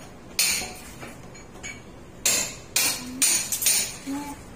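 Hammering during installation work on a kitchen stove: about five sharp, ringing blows at uneven intervals, one near the start and four close together in the second half.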